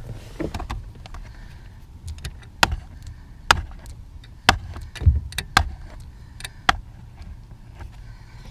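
Irregular sharp clicks and knocks of hands handling a car's disassembled steering intermediate shaft and its splined joint. About half a dozen are louder than the rest.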